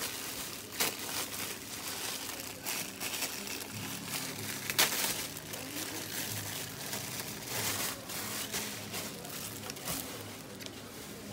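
Clear plastic bag crinkling and rustling as a ring light and its cable are handled inside it, in irregular bursts, with one sharper crinkle about five seconds in.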